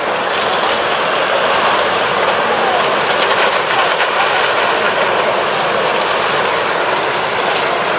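Steady rushing roar of the tsunami flood surging through the town and its wreckage, with a few faint crackles about three seconds in.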